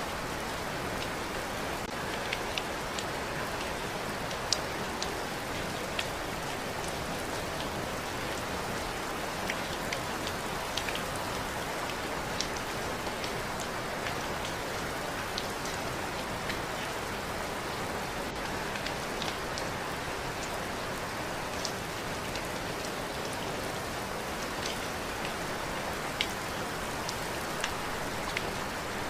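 Steady rain falling, a constant hiss with scattered sharp drips and drop ticks every second or so.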